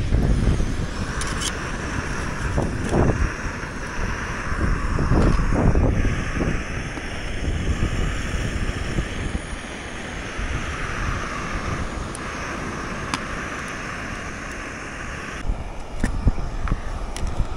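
Canister stove's gas burner hissing steadily from about a second in, under a few light clicks and knocks of the pot being handled and set on it. Wind buffets the microphone throughout, and the hiss cuts off near the end.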